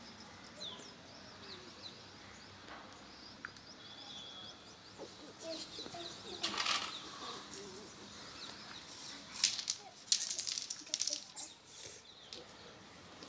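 Fingers parting and rubbing strands of hair right at the microphone during nitpicking: a soft rustling, with louder crackly bursts about halfway through and again in the second half. Faint bird chirps in the background.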